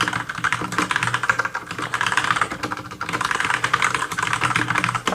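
Rapid, continuous typing on a Cherry G80-3850 mechanical keyboard with Cherry MX Brown switches, a dense run of key clacks with a brief pause about three seconds in.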